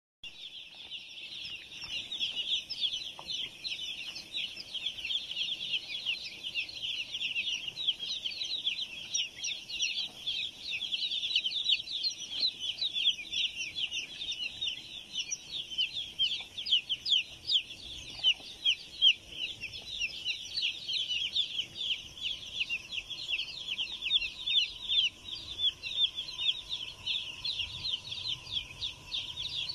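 A large flock of young broiler chicks peeping nonstop, a dense chorus of short, high cheeps. A faint steady tone joins in about two-thirds of the way through.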